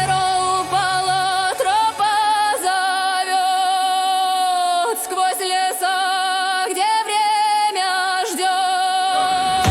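Music: a high voice sings long held notes with wide vibrato and short slides between them, over no bass. The low accompaniment comes back right at the end.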